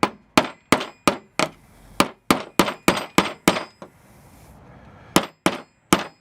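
Hammer striking metal in steady blows, about three a second, driving a friction-fit pin out of a metal band saw's guide assembly; the blows stop for a moment just past the middle, then resume.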